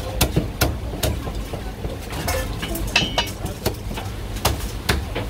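Meat cleaver chopping roast pipa duck on a thick wooden chopping block: a string of sharp, irregularly spaced chops, with a gap of about two seconds in the middle.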